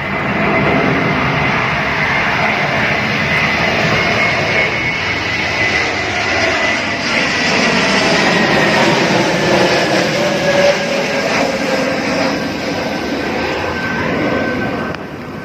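Airplane engines running, a loud steady rushing noise with a faint whine that slowly drops in pitch; it eases off near the end.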